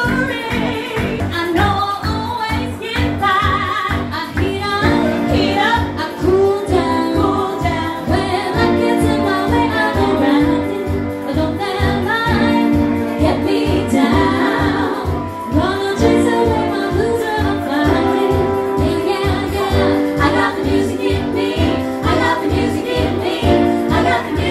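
Female vocal trio singing live into handheld microphones over amplified dance backing music with a steady beat.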